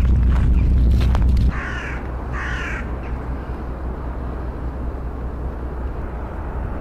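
Wind buffeting the microphone for about the first second and a half, then two harsh caws from a flock of crows, one right after the other, over a low steady rumble.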